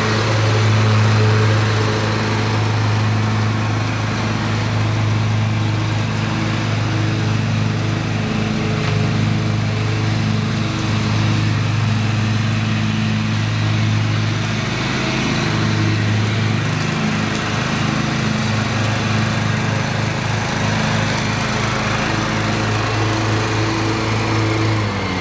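Snapper Yard Cruiser zero-turn riding mower's 14.5-horsepower engine, freshly tuned and fitted with a new muffler, running steadily as the mower is driven across the lawn.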